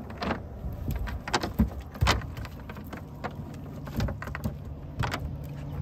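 Scattered knocks, clicks and rattles of fish being picked out of a cast net on a boat's deck. About halfway through, a low steady engine hum comes in.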